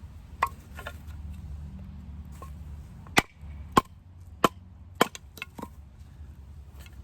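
Batoning: a wooden baton striking the spine of a Scandi-ground fixed-blade knife, the L.T. Wright Sospes, to drive it down through a piece of wood and split it. There are about nine sharp wooden knocks, the hardest four coming in quick succession in the middle.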